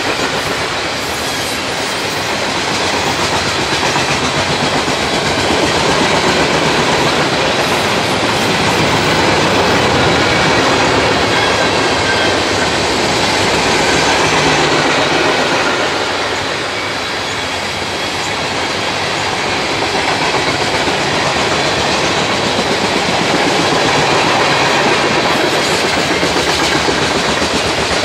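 Freight train cars rolling past, steel wheels clattering over the rail joints in a fast, steady clickety-clack.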